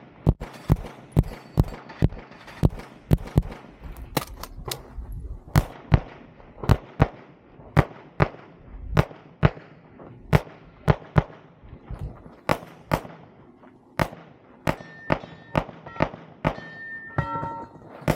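Glock 34 9mm pistol firing rapidly through a USPSA stage: dozens of shots, many in quick pairs, with brief pauses between strings. Near the end a few metallic ringing tones sound among the shots.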